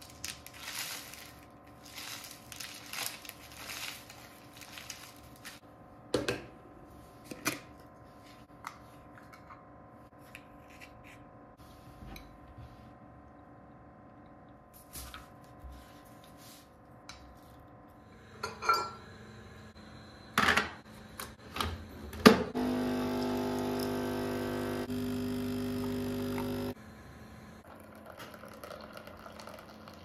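Granola crackling as it pours from a plastic bag into a ceramic bowl, then scattered clinks and knocks of tableware being handled, with one sharp knock about two-thirds of the way in. A steady buzzing hum follows for about four seconds and cuts off suddenly: a capsule coffee machine's pump starting a brew.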